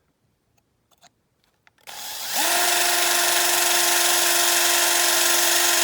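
Small electric drill spinning up about two seconds in, then running at a steady high speed while drilling out the rivet that holds the windscreen glass in a die-cast toy car body.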